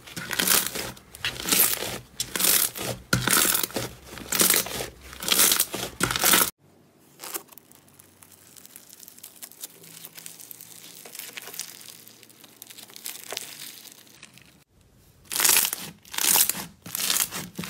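Slime being squeezed and pressed by hand, making a run of loud crackling, crinkly squishes about two a second. A quieter stretch of softer handling lasts about eight seconds in the middle, then the loud crackling squishes start again near the end.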